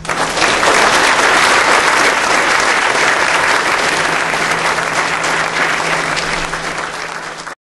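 Audience applauding steadily, cutting off abruptly near the end, with a faint steady low hum underneath.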